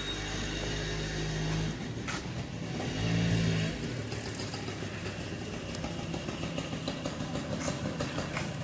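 A motorcycle engine running, getting louder for a moment about three seconds in.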